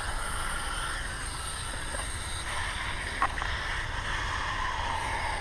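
Garden hose spray nozzle hissing steadily as it sprays water, with a brief click about three seconds in.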